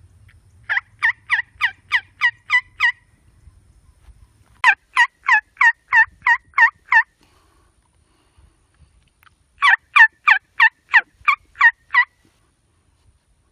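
Turkey yelping: three runs of about eight evenly spaced yelps each, roughly three or four a second, each note breaking from high to low.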